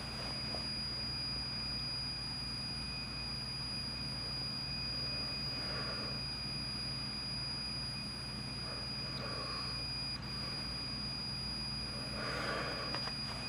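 Pioneer CT-W840R cassette deck running with a steady high-pitched whine over a low hum, and short squeaky noises coming back every few seconds, which the owner suspects is a squealing belt.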